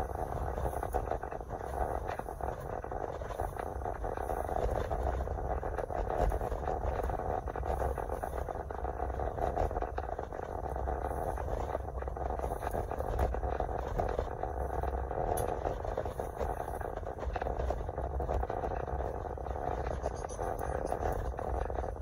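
Steady rumble of a car driving, heard from inside the cabin: engine and tyre noise.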